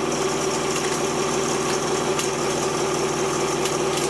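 Small electric tabletop candyfloss machine running steadily just after being switched on, its spinning head's motor humming while the sugar heats up.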